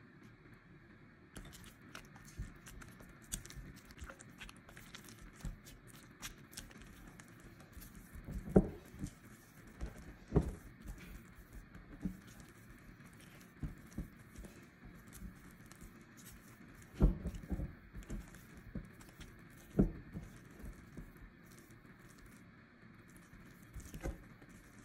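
Spatula stirring and folding thick, wet dough in a glass bowl: irregular squelching and scraping, with knocks of the spatula against the glass, several of them louder.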